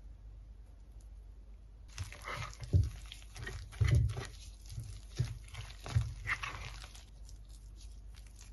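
A metal spoon stirring a thick, wet mixture of chopped herbs in a ceramic baking dish: an uneven run of scrapes and dull knocks that starts about two seconds in and stops after about five seconds.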